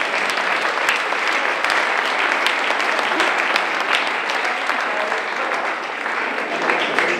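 Audience applauding: many hands clapping in a dense, steady patter after a short theatre scene.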